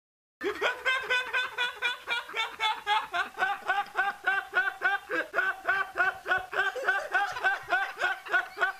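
A young man laughing uncontrollably over a Skype call, in a long, even run of quick high-pitched laugh pulses, about three or four a second, starting just after a brief silence.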